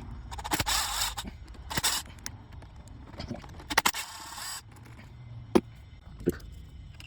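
Metal parts and hand tools scraping and clinking in a workshop, in several short bursts, with two sharp knocks near the end.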